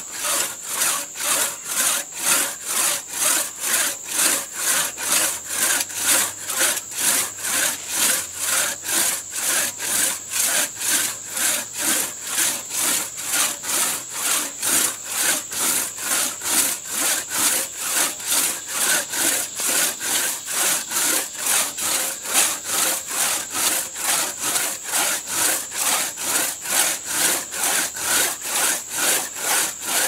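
A three-foot two-man crosscut saw cutting horizontally through a standing tree trunk in steady back-and-forth strokes, about two rasping strokes a second, evenly paced.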